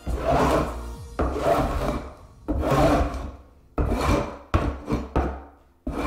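Long-handled scraper blade pushed across an OSB subfloor in repeated rasping strokes, about one a second and quicker near the end, scraping up leftover carpet pad and staples.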